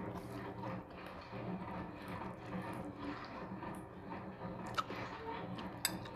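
Eating close to a clip-on microphone: chewing, with a metal spoon clinking twice against a ceramic bowl near the end.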